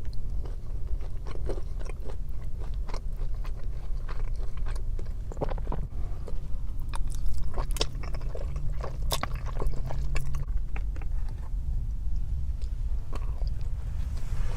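Close-up eating sounds: biting and chewing with crunches and wet mouth clicks, over a steady low hum.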